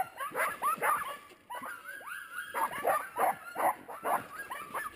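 Harnessed sled dogs whining and yelping in a rapid string of short, sliding high calls, with a brief lull about a second and a half in: the excited cries of dogs that have caught sight of deer.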